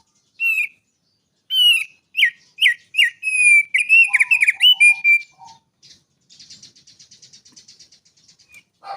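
Songbird singing a run of loud, clear whistled notes, many sliding down in pitch, then a fast, dry, buzzy trill near the end.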